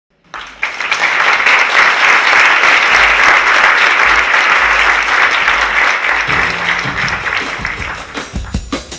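Audience applauding: dense, steady clapping that starts within the first half-second and begins to fade about six seconds in. Near the end a tango track comes in with a regular drum beat.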